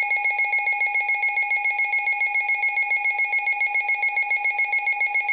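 Emergency alert attention tone: a loud electronic alarm on fixed pitches, pulsing rapidly and evenly without changing pitch, which announces a new emergency broadcast message.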